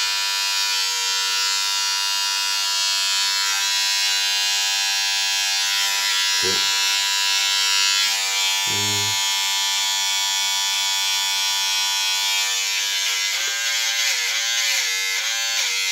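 Remington electric shaver running with a steady buzz as it trims the hairline of short cropped hair; its pitch wavers up and down near the end.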